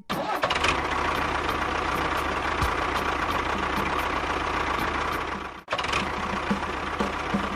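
Steady engine-like running sound of a miniature DIY tractor bulldozer. It breaks off for an instant about five and a half seconds in, then carries on.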